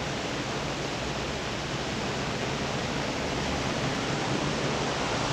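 Large drum fan running, a steady rush of air.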